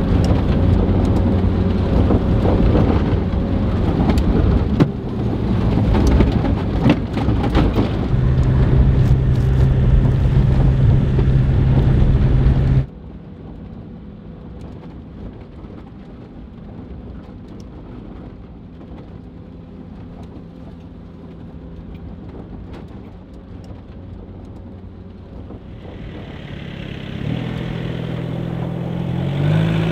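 A 1991 Volkswagen Westfalia's water-cooled flat-four engine drives the van over a sandy desert wash, heard from inside the cabin as a steady engine drone under dense rattling and clicking. About thirteen seconds in the sound cuts suddenly to a much quieter steady hum. Near the end the van's engine grows louder, its pitch rising as it pulls closer.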